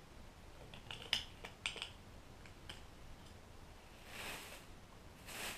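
Capping scratcher working across a shallow frame of capped honeycomb, opening the wax cappings: a quick run of sharp clicks about a second in, a few fainter ticks, then two soft scraping swishes near the end.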